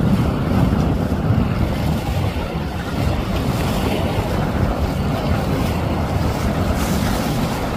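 Motorboat running past at speed through choppy water, its engine noise mixed with the rush of spray and waves from the hull, under steady wind buffeting the microphone.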